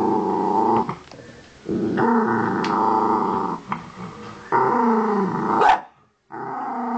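Miniature dachshund growling in long, deep, rumbling growls, several in a row with short breaks between, while guarding her pig's ear. One growl ends in a sharp rise in pitch, and another growl follows straight after a brief pause.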